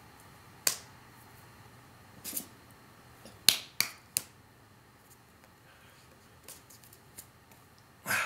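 Hands slapping and clapping together during sign language: a scatter of sharp slaps, the loudest three in quick succession about three and a half seconds in, and another near the end.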